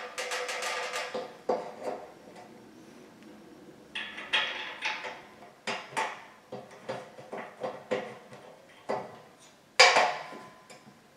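Steel rails of a metal platform bed frame being handled and fitted together: a run of metallic clanks, clicks and rattles. There is a ringing metal clang at the start and a loud knock about ten seconds in.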